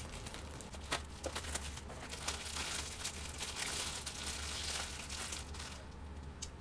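Thin plastic bag crinkling and rustling as a knotted bag of food is untied and handled, with a few sharp crackles early and a dense crinkle that dies down near the end.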